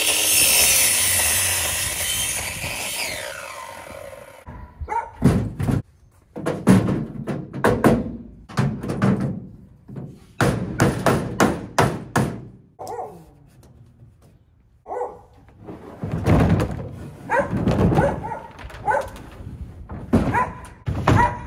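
A power miter saw cuts through a 2x6 board and its blade dies away over the first four seconds. After that comes a run of sharp knocks as a rubber mallet taps wooden boards into place.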